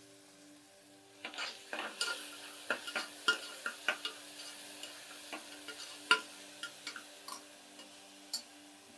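Spoon stirring and scraping onion and tomato as they fry in oil in a pressure cooker pan, with light sizzling. Irregular clicks of the spoon against the metal start about a second in.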